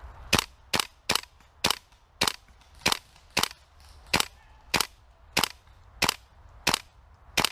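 Airsoft gun fired close by in single shots, about thirteen sharp cracks at a steady pace of roughly two a second, aimed at an opponent, who is hit.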